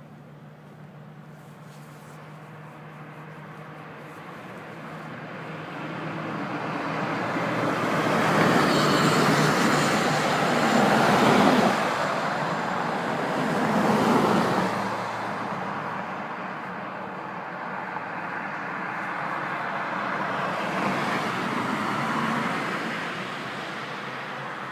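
Road traffic passing: the tyre and engine noise of vehicles swells over several seconds, is loudest near the middle, then eases off to a lower steady rush.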